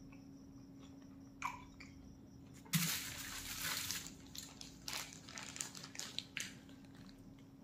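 Food wrapping of paper and aluminium foil crinkling as a long wrapped roll is lifted and unwrapped: a loud rustle about three seconds in, then scattered crackles.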